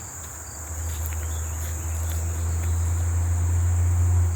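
Steady, high-pitched chorus of crickets and other insects, with a low steady rumble underneath that is louder than the insects.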